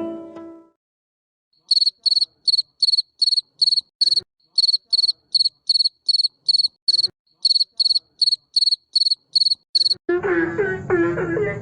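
Field cricket chirping: a regular series of short, high chirps, about three a second, starting a second and a half in. Near the end a denser, lower chorus of calls cuts in abruptly.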